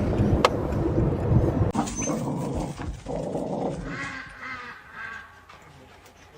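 A dog vocalising, with a high, wavering, pitched cry lasting about a second, about four seconds in. Before it there is a stretch of low, noisy sound with a sharp click about half a second in.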